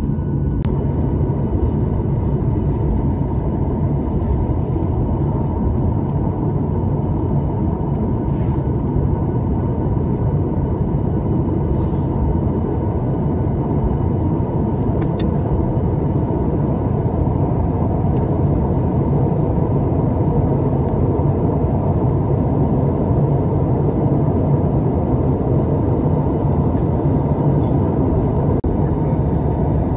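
Cabin noise of a Boeing 737-900ER taxiing, heard from a window seat: its CFM56 jet engines run at low power, making a steady rumble with a low hum.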